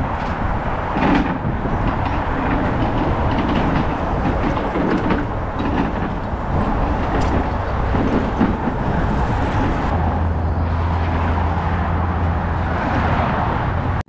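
Steady rumble of highway traffic alongside, mixed with wind noise on a bicycle-mounted action camera while riding. A low steady hum comes in for a few seconds near the end.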